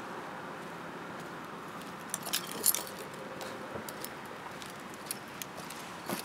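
Scattered light metallic clinks and jingles, the loudest near the middle, over a steady background hiss.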